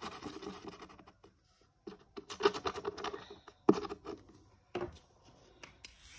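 Scratching on a scratch-off card, in short bursts with pauses, and a sharp tap or click about halfway through.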